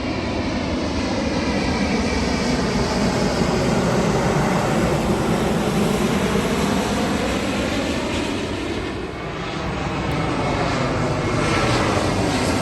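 Jet engine noise of a Singapore Airlines Airbus A350 passing low overhead on its landing approach: a loud, steady rush whose tone sweeps slowly as it goes by, easing briefly about nine seconds in before building again.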